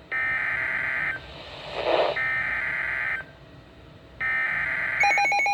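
Midland WR120 weather radio sounding the NOAA Weather Radio SAME alert header: three harsh digital data bursts of about a second each, a second apart, encoding a Severe Thunderstorm Warning. A short rasping sound falls between the first two bursts. Near the end a rapid pulsing alert beep starts.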